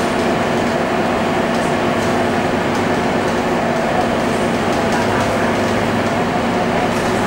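Scania K230UB bus with its Scania DC9 diesel engine running while the bus is under way, heard from inside the passenger cabin. It is an even drone with several held tones.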